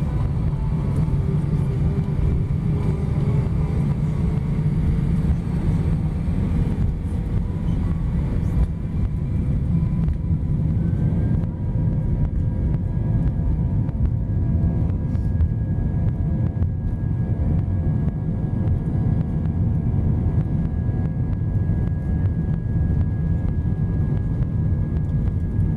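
Airbus A320 heard from inside the cabin as it rolls on the ground: a steady low rumble with a faint engine whine that creeps up in pitch, and a higher whine joining about eleven seconds in.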